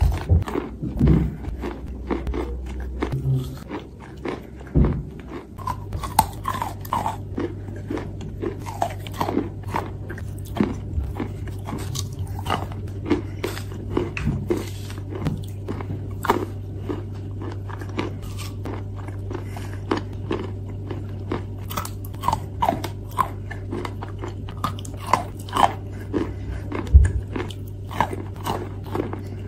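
Chalk mixed into wet clay paste being bitten and chewed close to the microphone: a dense, irregular run of wet crunches and chewing, with one especially sharp crunch near the end.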